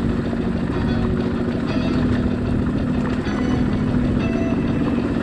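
Motorcycle engine running steadily under way, with wind and road noise; the engine note steps up and down a few times with the throttle.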